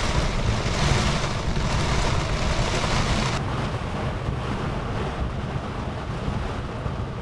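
Strong wind gusting and buffeting the microphone with a low rumble, with rain falling; a continuous rushing noise whose upper hiss eases slightly about three seconds in.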